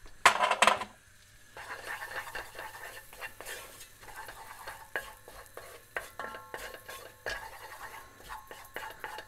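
A wooden spoon stirring flour into melted butter in a non-stick saucepan, scraping and knocking against the pan as a roux is worked together. A short, loud clatter comes about half a second in, before the steady stirring starts.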